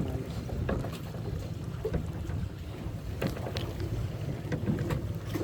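Steady low rumble of a small fishing boat at sea, with wind buffeting the microphone and a few light knocks.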